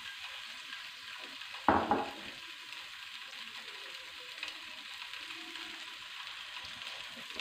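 Oil sizzling in a nonstick frying pan as spice-coated boiled eggs shallow-fry, a steady faint hiss, with a single short knock about two seconds in.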